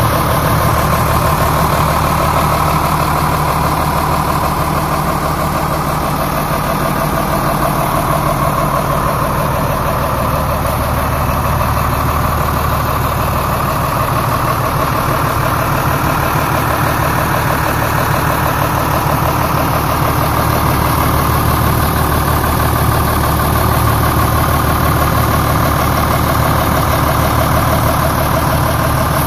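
Fendt Favorit 514 C Turboshift tractor's diesel engine idling steadily.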